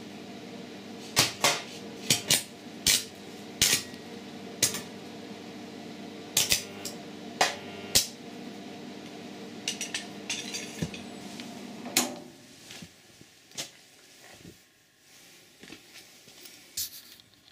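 Ferm Concept 210 arc welder's transformer humming while energised as a 415 V supply, with irregular sharp metallic clicks. The hum cuts off about twelve seconds in as the supply is switched off, and a few clicks carry on for several seconds after.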